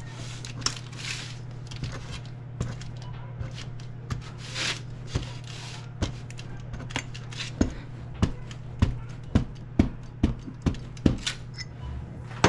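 Bottom of a glass tamping graham cracker crumbs into a springform pan, making a run of sharp knocks that come faster and more regularly in the second half, about two or three a second. A steady low hum runs underneath.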